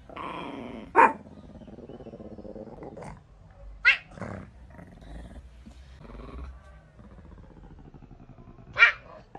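A cat growling low and steadily, broken by three short, sharp, loud cries.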